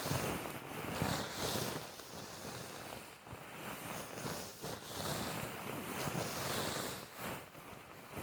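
Wind blowing in gusts: a rushing noise that swells and eases every few seconds, with wind buffeting the microphone.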